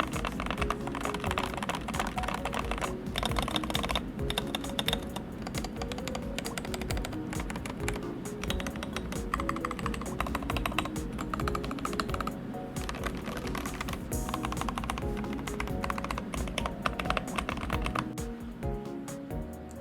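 Typing on a LOFREE Touch 68-key mechanical keyboard: a rapid, continuous run of keystroke clacks, over soft background music.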